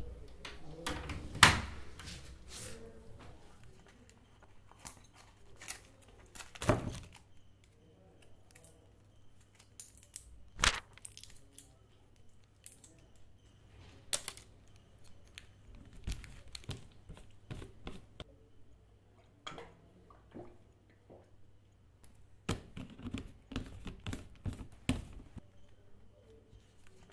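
A metal barrel bolt on a wooden door slid shut with a sharp clack about a second and a half in. It is followed by scattered small clicks, knocks and crinkling as plastic packets are handled, over a faint low hum.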